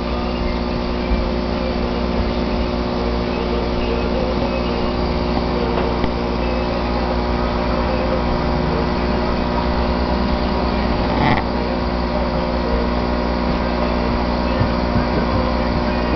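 Steady mechanical hum of aquarium equipment running beside the tank, with a brief click about eleven seconds in.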